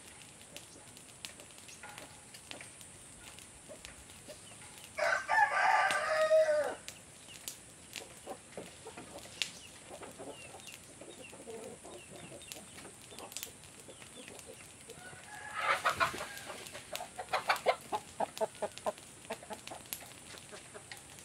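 A rooster crows once about five seconds in, a call of nearly two seconds that ends on a falling note. From about fifteen seconds in, chickens cluck in a quick run of short notes lasting several seconds.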